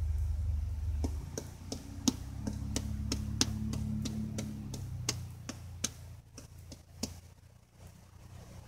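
A kitchen knife slicing strips off a ripe papaya, making sharp ticks about twice a second. Under it a distant all-terrain vehicle's engine hums, loudest about a second in and fading away during the second half.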